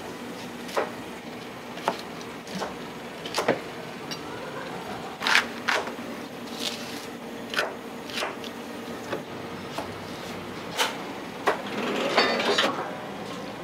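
Irregular sharp chops and knocks of a knife on a plastic cutting board as celery is trimmed, over a steady low hum. Near the end comes a brief burst of clattering noise.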